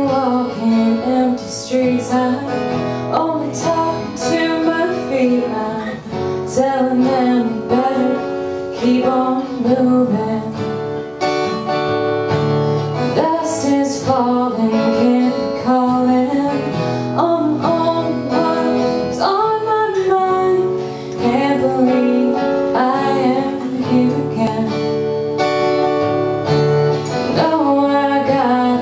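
A woman singing a folk song live, accompanied by strummed acoustic guitars.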